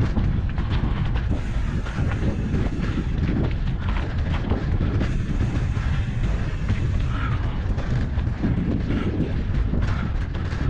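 Mountain bike rolling over a rough trail: a steady rumble from the tyres on the ground with constant clicking and rattling from the bike, and wind on the microphone.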